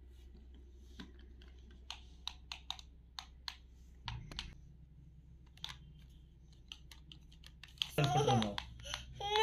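Scattered plastic clicks and taps from a toy remote-control car and its remote being handled and its buttons pressed. Near the end a young child starts crying loudly.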